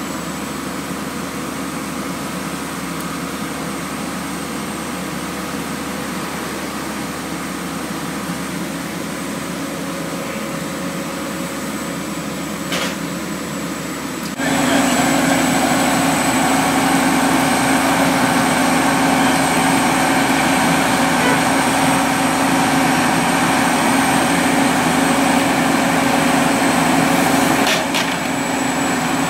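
Horizontal directional drilling rig's engine running steadily, stepping up louder about halfway through.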